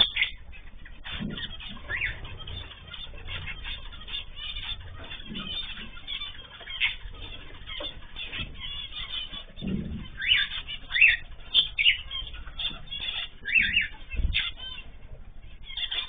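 Mixed cage birds (cockatiels, zebra finches and canaries) calling with many short, irregular chirps, busier in the second half, with a few low thuds.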